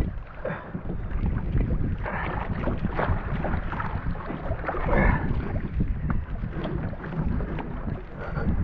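Water splashing and slapping around a fishing kayak, with scattered knocks against the hull and wind rumbling on the microphone.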